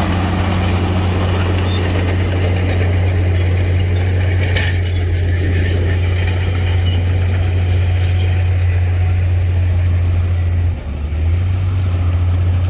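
Heavy diesel engine of earthmoving machinery running steadily with a deep low hum, briefly dipping about eleven seconds in.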